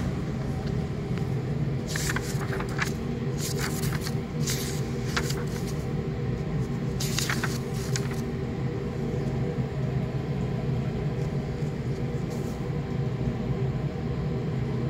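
Steady low hum of room ventilation, with a few short rustles and crackles of paper handling between about two and eight seconds in.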